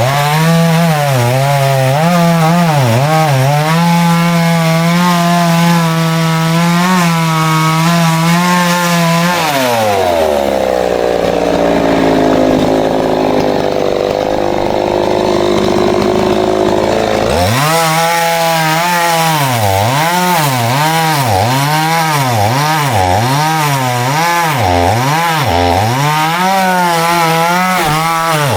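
Two-stroke chainsaw cutting wood at full throttle, its pitch sagging under load. About ten seconds in it drops to idle, then revs back up some seven seconds later and cuts again, the engine note dipping and recovering about once a second as the chain bites.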